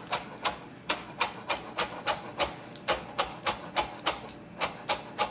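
Chef's knife chopping chives on a wooden cutting board: steady, sharp taps of the blade striking the board, about three a second.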